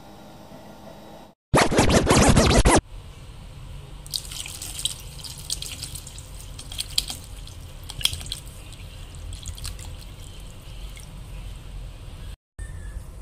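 Water poured into a metal bowl holding two tomatoes, with small splashes and drips. About a second and a half in there is a loud burst of rushing noise lasting about a second.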